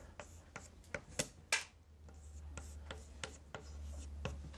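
Chalk writing on a blackboard: short, irregular taps and light scrapes as each stroke of a formula is written, over a faint steady low hum.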